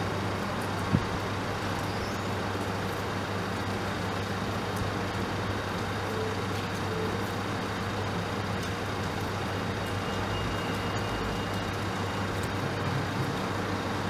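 Steady low hum of distant road traffic, with one light knock about a second in.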